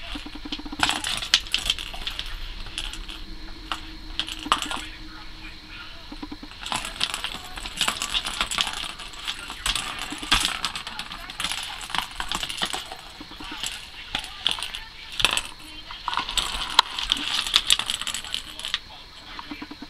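Plastic ball-in-track cat toy rattling and clattering as a cat bats the ball around the circular track with its paws: irregular clicks and rolling rattles in bursts, with short lulls between.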